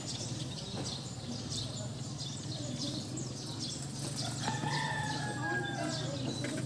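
A rooster crows once, a long call starting about four and a half seconds in and falling slightly in pitch, over the steady chirping of small birds and a low hum.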